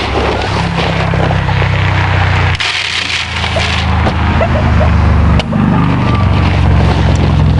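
Camera handling noise: scraping, rubbing and small knocks against the microphone over a steady low rumble that drops out briefly twice.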